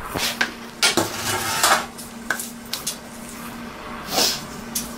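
Kitchen clatter: metal pots, pans and utensils knocking and scraping in a string of short clanks, over a faint steady hum.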